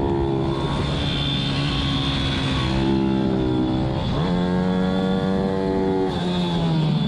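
Pit bike engine at racing revs, heard from on board the bike. The engine note drops about half a second in, climbs near three seconds, dips and rises sharply around four seconds, and drops again near six seconds, as the rider works throttle and gears.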